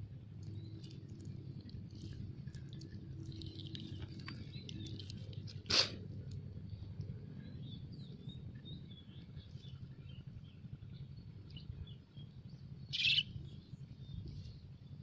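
Small birds chirping over a steady low rumble, with one sharp click about six seconds in and a short louder burst about thirteen seconds in.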